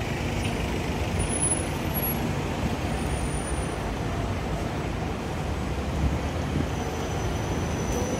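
Road traffic on a busy city street: a bus's engine running close by, with other traffic behind it, making a steady low rumble.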